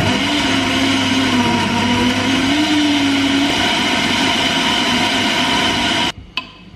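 Countertop blender running at speed, blending a green smoothie with frozen fruit, its motor hum wavering slightly in pitch over the first half, then switched off about six seconds in. A couple of light clicks follow as the lid comes off.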